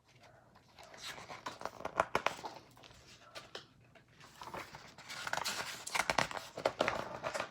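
Paper rustling and crinkling as a picture book's pages are handled and turned, with a run of small irregular clicks and crackles.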